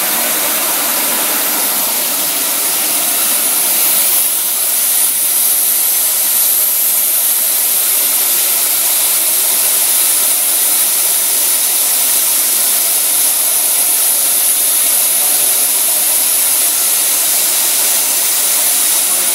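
High-speed milling spindle on an industrial robot arm running steadily as it machines a block, a high steady whine over a wide hiss.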